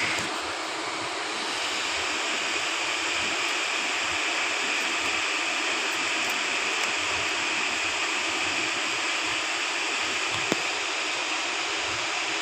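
Waterfall in heavy flow, its water rushing steadily, with one brief sharp click near the end.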